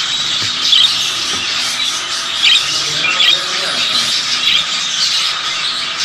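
A crowd of caged budgerigars and cockatiels chattering together in a steady, dense twitter, with several sharper squawks standing out.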